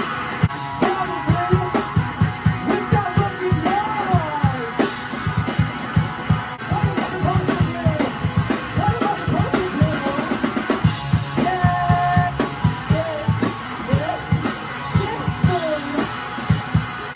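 Rock band music: a drum kit playing a steady beat with kick and snare, over guitar and a bending melodic line.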